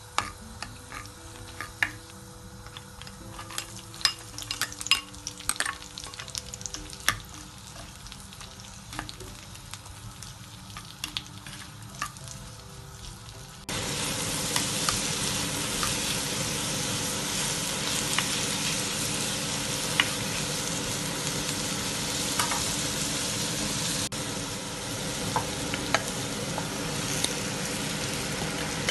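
Dried red chillies spluttering in hot coconut oil in a clay pot, with scattered sharp pops and the taps and scrapes of a wooden spatula. About halfway through it changes suddenly to a louder, steady sizzle as diced onions are sautéed in the oil.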